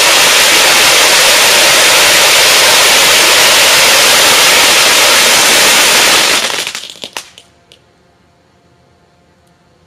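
Several ground firework fountains spraying sparks, a loud steady hiss with crackle. The hiss dies away about six and a half seconds in, with a few last cracks as the fountains burn out.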